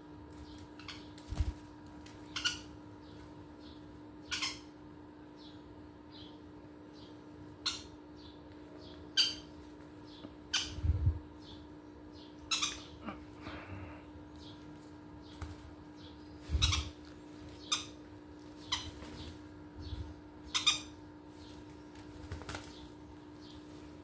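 Green-cheeked conures fluttering and shifting while being hand-fed from a syringe: scattered short flutters and sharp clicks, some with a soft thump, coming every second or two.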